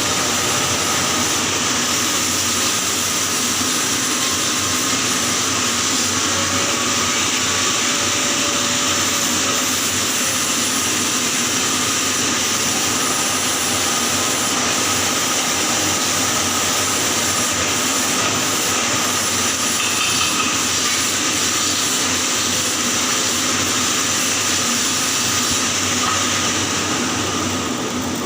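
Electric arc welding on a pipe joint: the arc burns with a continuous hiss, easing slightly near the end.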